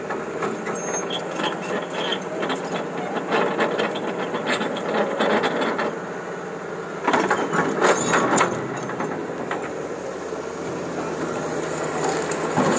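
An old excavator working in rock: its engine runs steadily under clanking and scraping from the bucket digging. The loudest stretch of scraping and knocking comes about seven to eight and a half seconds in.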